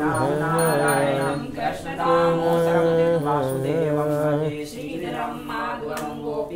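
A man chanting a Hindu devotional aarti in long held, gently wavering notes that step up and down in pitch.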